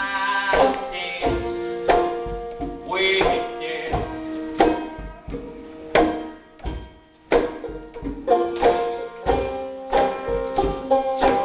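Live folk band playing: banjo and acoustic guitar picking over a beat from a djembe hand drum, snare and bass drum, with a sung note from the banjo player at the start. The band drops out briefly a little past halfway, then comes back in on a hard drum hit.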